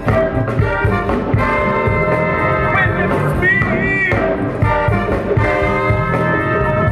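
Live funk band playing with a horn section of saxophones and trombones holding sustained chords over electric bass, keyboards and a steady drum groove. One high note bends up and back down about halfway through.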